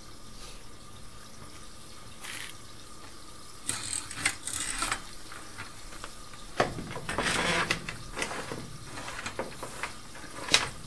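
Water running and splashing in two short bursts, with scattered light knocks and clicks.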